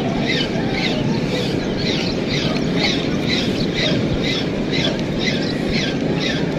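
Shimano baitcasting reel being cranked to retrieve a lure, giving a short squeak with each turn of the handle, about two and a half a second, over a steady low rumble.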